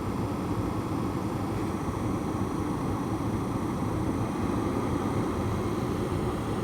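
2011 Jeep Liberty's HVAC blower fan running steadily, a constant rush of air with no clicks or changes.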